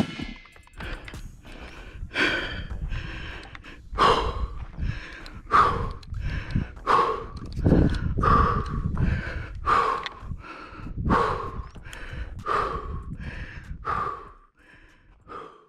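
A person breathing hard close to the microphone, quick regular breaths in and out, about one full breath every second and a half.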